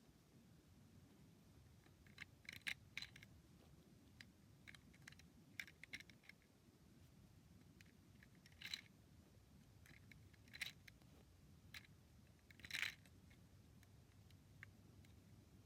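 Faint, irregular small clicks and taps of plastic Lego pieces being handled, a few a little louder than the rest.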